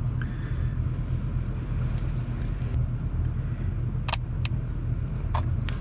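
A few sharp metallic clicks from needle-nose pliers working a hose clip onto a fuel filter line, two close together about four seconds in and two more near the end, over a steady low rumble.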